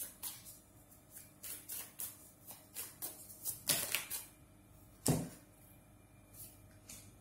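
A deck of tarot cards handled and shuffled by hand: a run of quick, light card flicks and clicks, then one louder knock of a card or the deck on the table about five seconds in.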